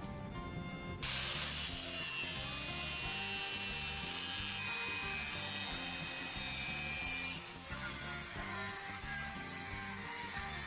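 A power tool working metal starts up about a second in, a steady hiss with a high whine, stopping briefly and starting again about three-quarters of the way through. Background music plays underneath.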